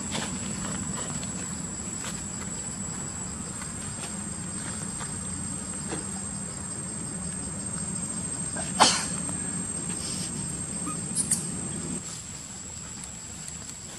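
Steady high-pitched drone of crickets or other insects, with a low hum underneath that stops near the end. A single sharp click about nine seconds in is the loudest sound, followed by two smaller clicks a couple of seconds later.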